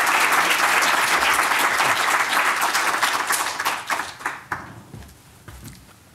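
Audience applauding, the clapping dying away about four to five seconds in, followed by a few scattered soft knocks.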